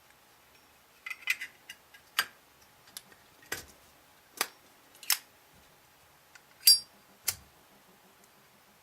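Zippo lighter's metal case and lid being handled and snapped shut after refilling: a string of about ten sharp metal clicks and clacks, the loudest near the end with a brief metallic ring.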